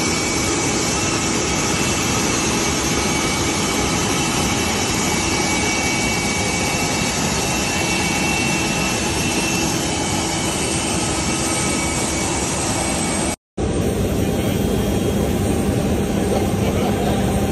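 Jet turbine engine running steadily on an airport apron: a loud, even rush with a faint steady whine. It cuts out for an instant about 13 seconds in, then goes on.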